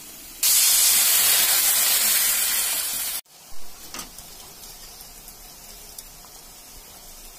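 Hot fried masala in a kadhai sizzling loudly, starting suddenly as water meets it, to build the gravy. It cuts off sharply a little past three seconds. A quieter simmer follows, with a few soft knocks as the fried koftas go into the gravy.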